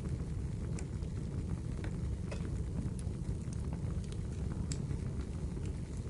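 Wood fire crackling in a fireplace: irregular sharp pops and snaps, several a second, over a steady low noise of the burning fire.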